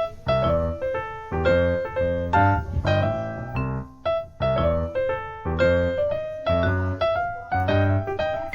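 Piano music: a bright melody of separate notes over a steady bass line.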